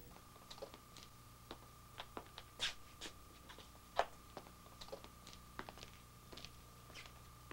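Quiet studio with faint, irregular clicks and knocks from a man getting up from a folding chair and moving across the floor, over a faint steady high tone and low hum.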